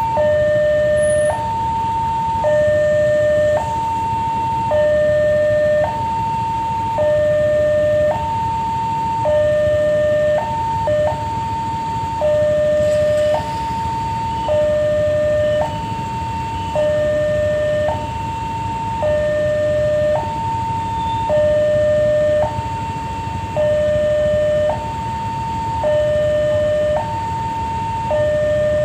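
Railway level-crossing warning alarm sounding: a two-tone electronic signal switching between a high and a low tone about once a second, repeating steadily, which warns that a train is approaching.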